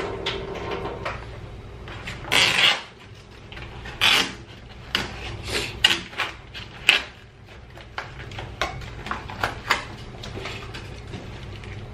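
Plastic packaging of an instant yakisoba tray being peeled open and handled: crinkling and rustling in several sharp bursts, with lighter clicks and knocks of the plastic tray on a stainless steel sink.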